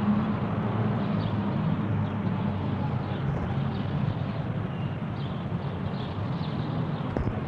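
Outdoor ambience: a steady low rumble like distant traffic, with faint high bird chirps scattered through it and one small click near the end.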